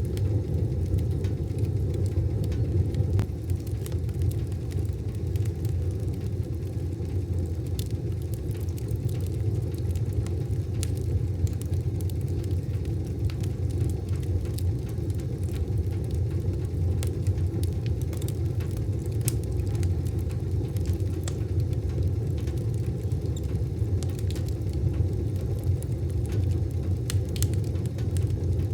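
Wood fire burning in a wood stove: a steady low rumble with irregular, scattered sharp crackles and pops.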